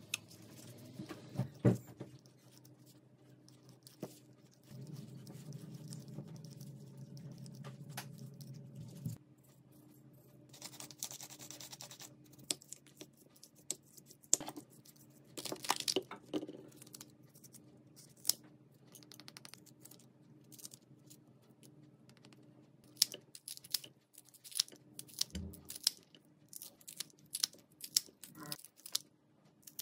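Kitchen food-prep sounds: raw chicken strips being handled and mixed in a ceramic bowl, then kitchen scissors snipping through a mini bell pepper in a quick run of sharp, crisp cuts near the end.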